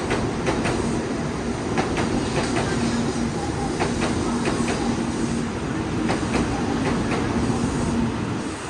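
Tokaido Shinkansen train running, a steady rumble with a low hum that comes and goes and scattered sharp clicks.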